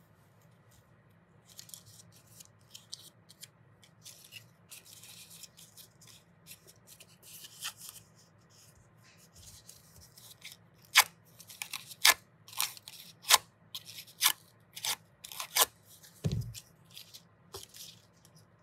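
Craft paper rustling as it is handled, then scissors snipping through the paper: about eight sharp cuts, one every half second or so, with a low knock near the end.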